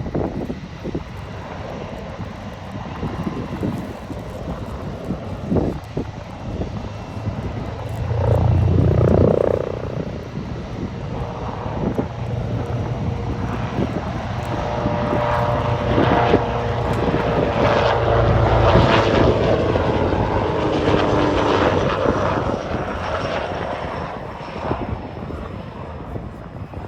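TAI T625 Gökbey twin-turboshaft helicopter flying a low display, its rotor and turbines running steadily. The sound swells about eight seconds in and again in the middle, where a whining turbine tone grows louder as it comes close.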